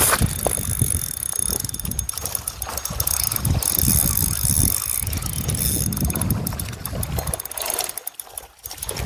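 Spinning fishing reel being cranked fast to retrieve a lure, its gears making a rapid, even clicking whirr, with a short pause near the end. Wind buffets the microphone.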